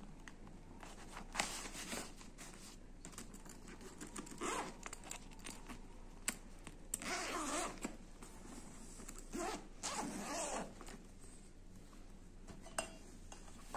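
Zippers on a fabric backpack's pockets being pulled by hand: several short zipping strokes, the longest a little past halfway through.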